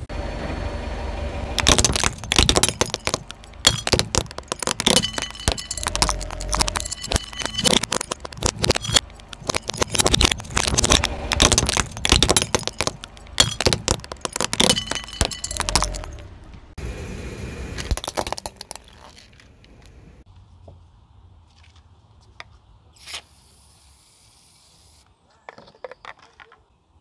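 Hard plastic cracking and snapping as it is crushed under a car tyre: a dense run of sharp cracks and crunches for about fourteen seconds. It then thins out to a few faint clicks.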